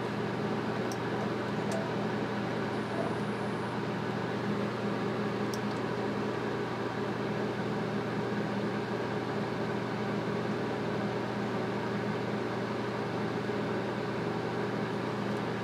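A steady low machine hum with an even hiss over it, and a few faint ticks in the first few seconds.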